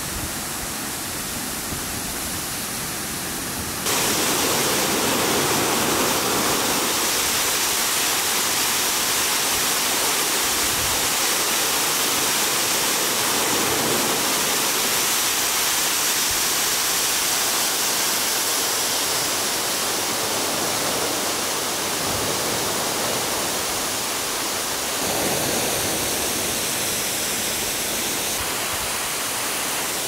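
Waterfall cascading down a rock face: a steady rushing of falling and splashing water, which gets louder about four seconds in.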